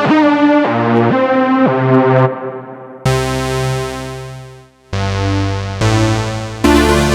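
Polyphonic analog-style synthesizer, the Arturia AstroLab's Jup-8 emulation of the Roland Jupiter-8, playing chords. A run of short chords in the first two seconds, then sustained chords from about three seconds in. The first held chord fades almost to nothing before new chords come in.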